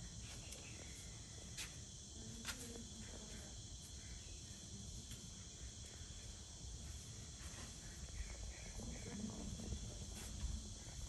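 Steady insect chorus, an even high-pitched buzz, with two sharp clicks about two seconds in.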